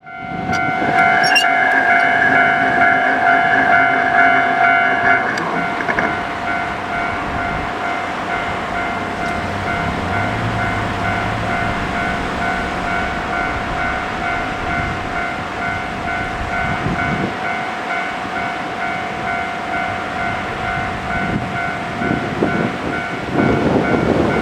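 Sanyo Main Line level-crossing warning bell ringing: a new-style electronic ding that repeats rapidly without a break. For about four seconds near the start a long steady train horn sounds over it. Near the end the rumble of a train passing over the crossing grows louder.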